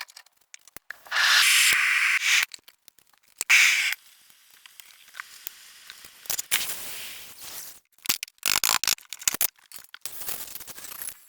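Workshop tool noise: several short hissing bursts, each a second or so long, with clicks and scrapes between them.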